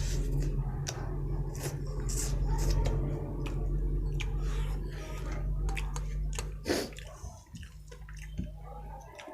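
Close-miked eating sounds: wet chewing and mouth smacks with scattered clicks, over a steady low hum that cuts off about two-thirds of the way through.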